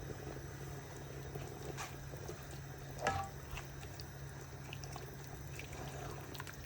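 Faint kitchen sounds of a pot of soup cooking on the heat, with a light bubbling over a steady low hum. There is one sharp clink about three seconds in and a few smaller ticks.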